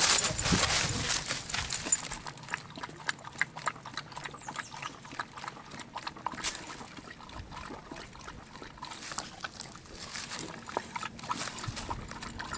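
A beagle lapping water from a pond: a long run of small, irregular wet clicks. The first couple of seconds are louder, with rustling as she moves.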